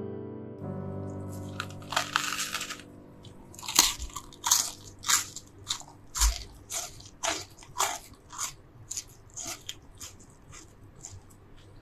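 A crunchy bite into a chicken slider, then steady chewing at under two chews a second, growing gradually fainter. Soft piano music dies away at the start.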